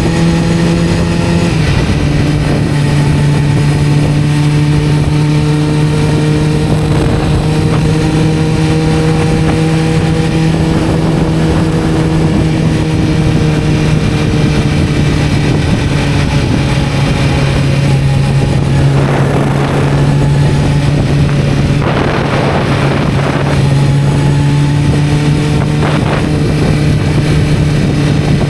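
1991 Kawasaki ZZR-400's inline-four engine running under way at a steady cruise. Its note drops slightly about a second and a half in, then holds nearly steady. A few brief rushes of noise come over it in the second half.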